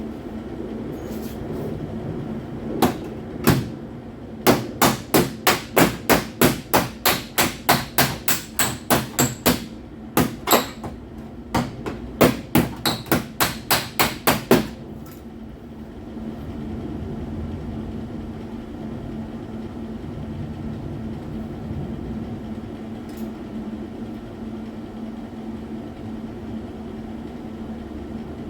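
Hammer blows on car body sheet metal while a replacement quarter panel is being aligned: two single strikes, then fast runs of about three blows a second with a short break, stopping about halfway. A steady low hum runs underneath.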